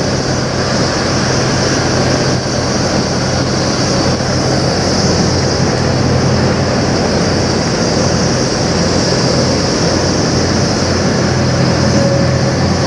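Diesel semi-truck engine idling steadily, a constant low hum with a steady hiss above it.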